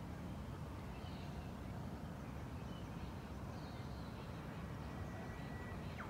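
Outdoor bush ambience: a steady low rumble with faint, high bird chirps now and then and a thin whistle about five seconds in.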